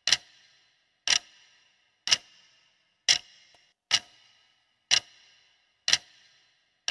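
Clock-tick sound effect of a quiz countdown timer, one sharp tick each second, each with a brief ringing tail.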